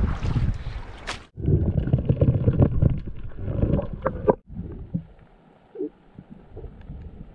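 Muffled water sloshing and rumbling on the camera, with scattered knocks. It breaks off abruptly about a second in and again after about four seconds, then goes on much quieter with a few clicks.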